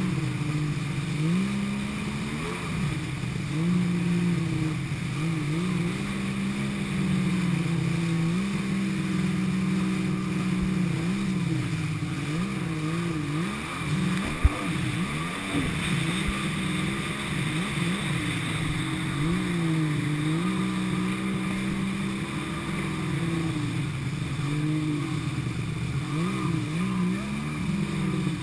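Kawasaki JetSki personal watercraft engine running at speed, its pitch rising and falling again and again with throttle changes, over the rush of water spray and wind. One sharp knock about halfway through.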